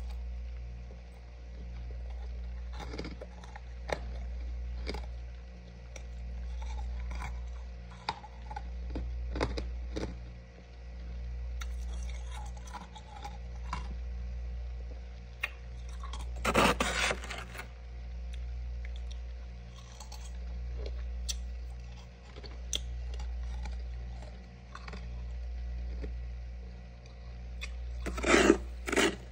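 Metal spoon scraping and crunching through thick freezer frost: one loud scrape about halfway through and a run of quick strokes near the end, with faint scattered ticks and crackles between. A steady low hum sits underneath.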